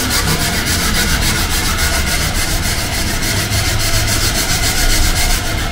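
Hand sanding with a sanding block on a repaired carbon-fibre front spoiler: quick back-and-forth rubbing strokes that keep up steadily, smoothing the repaired surface level.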